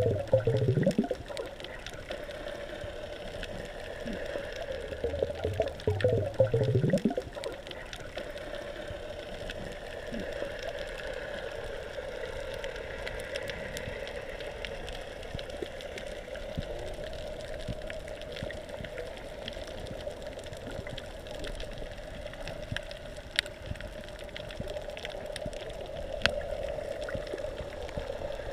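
Scuba diver breathing underwater through a regulator: a gurgling rush of exhaled bubbles at the start and again about six seconds in, then a steady underwater hiss with a few faint clicks.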